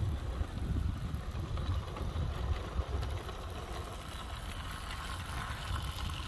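Wind buffeting the microphone in a low, uneven rumble, with a light rattle rising near the end as a 16mm-scale model tractor locomotive and its small wagons run past close by.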